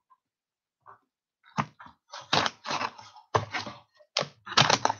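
A mailed cardboard package being opened by hand. After a quiet second and a half comes a quick run of short rustling and scraping noises, about three a second.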